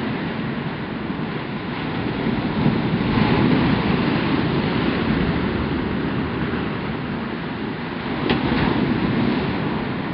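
Ocean surf breaking and washing over a rocky shoreline: a steady rush that swells about three seconds in and again near the end, with one brief sharp click about eight seconds in.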